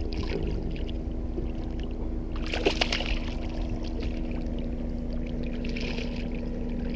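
A hooked striped bass splashing at the water's surface beside the boat, in two short spells about two and a half seconds in and again near the end, over a steady low hum.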